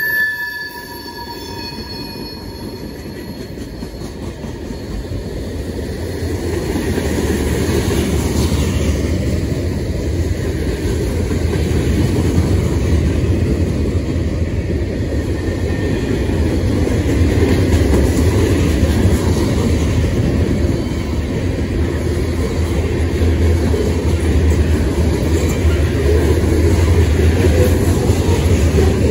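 CSX train rolling past, the rumble of its cars on the rails building over the first several seconds and then staying loud and steady. A high ringing tone dies away in the first couple of seconds.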